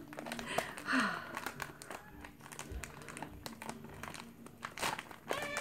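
Thin clear plastic bag crinkling and crackling in irregular little bursts as it is handled and pulled open by hand.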